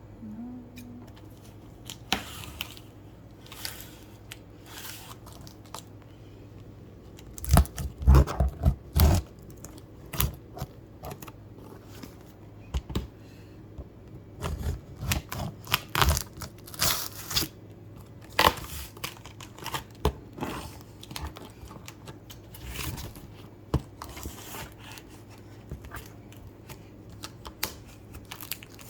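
Packaging being opened by hand: tearing, crinkling and scraping of tape, plastic and cardboard in irregular bursts, with a few heavier handling thumps about a third of the way through.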